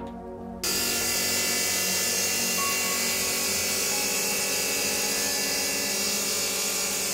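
Water-cooled lab rock saw cutting a limestone sample for a thin section, with a loud, steady hiss and whine that starts abruptly about half a second in.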